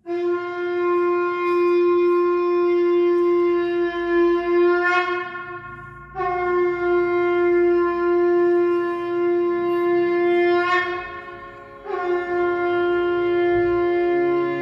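Conch shell (shankha) blown in three long, steady calls of about five seconds each, at one pitch. Each call starts with a slight droop and the first two end in a short wavering flourish. This is the ritual sounding of the conch that opens an invocation to the goddess Durga.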